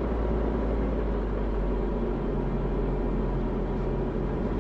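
Steady drone of a Diamond DA40's engine and propeller heard from inside the cabin on approach, a low hum under an even rush of noise.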